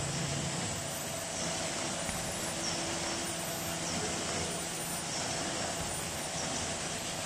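Paper collating machine running: a steady mechanical drone with a few held tones and a faint repeating tick about once a second.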